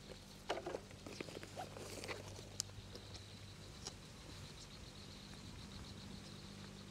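Close-miked chewing and lip smacking of a man eating steamed chicken: irregular wet smacks and clicks in the first few seconds, then quieter chewing.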